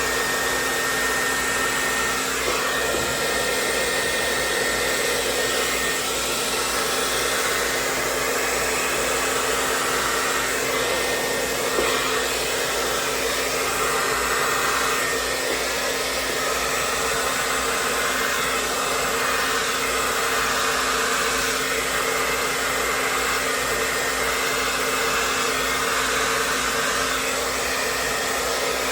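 Handheld blow dryer running steadily, with a steady hum under its airflow noise.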